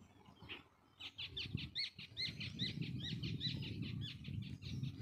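A bird calling in a quick, even run of short, high chirps, about four a second, starting about a second in, over a low rumble.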